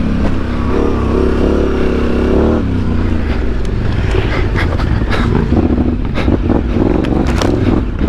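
Yamaha Ténéré 700's parallel-twin engine with a Mivv Dakar exhaust, heard from the bike riding off-road. The engine note holds for the first two and a half seconds, drops back, then comes in again over the last couple of seconds. Sharp knocks and clatter from the bike on rough ground fill the middle.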